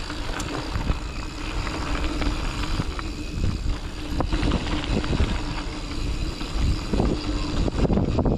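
Mountain bike riding down a dirt trail: a steady low rumble of the tyres over the ground, with frequent knocks and rattles from the bike over bumps.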